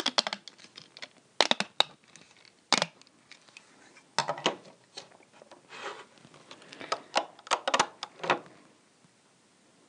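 Handling noise from a plastic Rainbow Loom as the rubber-band bracelet is pulled off its pins with a hook: irregular clicks, snaps and short rustles in several clusters, dying away near the end.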